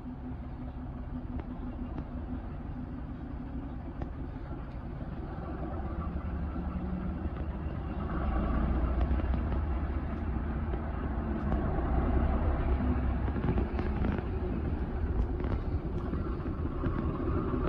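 Diesel railcar engine running with a deep rumble, which swells louder from about six to eight seconds in as the railcar powers up.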